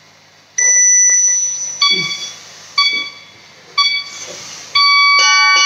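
Workout interval timer beeping: one long beep about half a second in, three short beeps a second apart, then a long beep near the end. It is the timer's countdown marking the end of a round.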